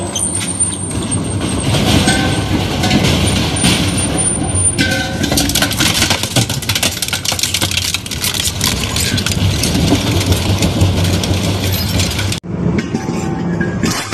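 Industrial shaft shredder running, its interlocking toothed cutter discs crunching and tearing metal scrap in a dense metallic clatter that gets busier about five seconds in. It breaks off abruptly near the end and another shredder's rotors grind on.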